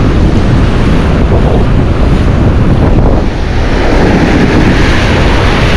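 Wind buffeting the microphone over the wash of shallow surf, a dense steady rumble; a wave washes in with a brighter hiss about four seconds in.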